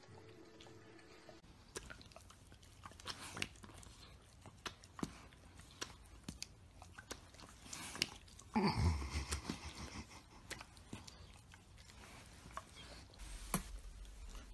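A dog licking a person's face: irregular wet slurps and tongue and mouth clicks. A little past halfway there is a louder sound that drops in pitch over about a second.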